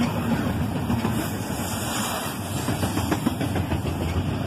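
Double-stack intermodal well cars rolling past close by: a steady rumble of steel wheels on the rails.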